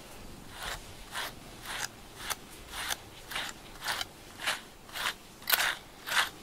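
A grooming brush stroked through a cat's fur again and again, a short rasping swish about every half second.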